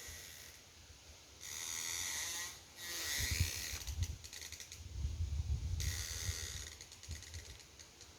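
Drawn-out creaking in about four long strokes, each lasting up to a second, with a low rumble under the middle strokes.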